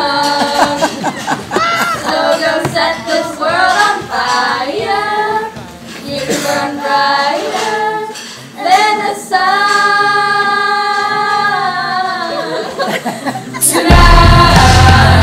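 Four girls singing together unaccompanied, with several long held notes. Near the end, loud music with heavy bass cuts in abruptly.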